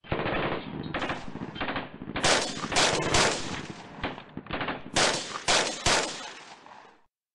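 Gunfire in a firefight: rapid machine-gun bursts with single louder shots standing out between about two and six seconds in.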